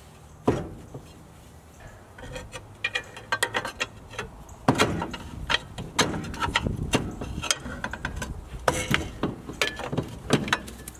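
Irregular metal clanks and knocks, some ringing briefly, as a seized front brake drum on a Ford Maverick is worked and forced off, its shoes stuck against the rusted drum. The knocking grows louder and busier about five seconds in.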